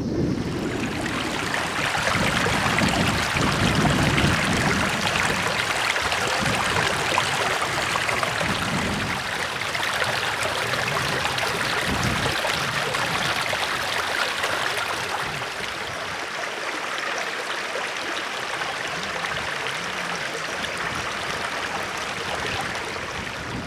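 Flowing water rushing steadily, like a stream running over an obstruction, with irregular low gusts of wind on the microphone underneath.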